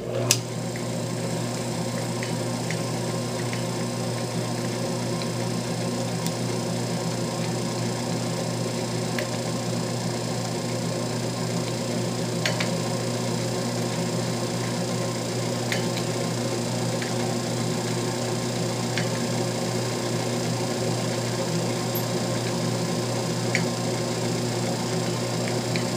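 Small belt-driven metal lathe running under its electric motor: a steady hum with several steady tones, starting right at the outset. A reamer in the tailstock is fed by hand into the bore of a keyless drill chuck part, with a few faint ticks along the way.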